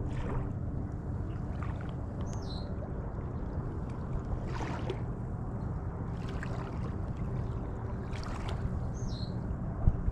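Outdoor ambience by the water: a steady low hum with soft rushing swells coming and going. A short falling chirp sounds twice, and a single sharp knock comes near the end.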